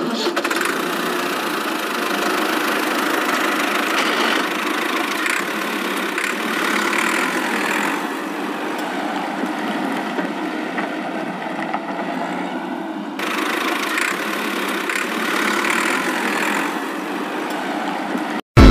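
Small plastic toy tractor wheels rolling and grinding over rough concrete as the toy is pushed along by hand, a steady gritty scraping.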